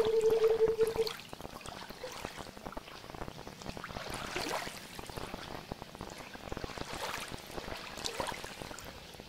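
A held synth note cuts off about a second in, leaving water trickling and dripping with many small splashes, an ambient water soundscape within the track.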